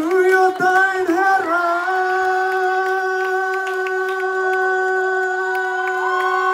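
A singer holding one long sung note, wavering at first and then held steady, with other voices gliding in near the end.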